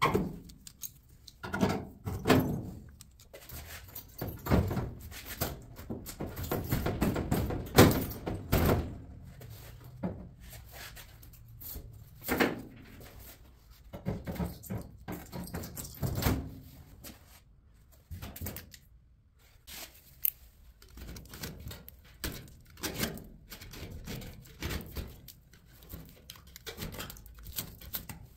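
Irregular thuds and knocks, some with a short scrape, from hand work on the truck's sheet-metal body. The loudest thud comes about eight seconds in.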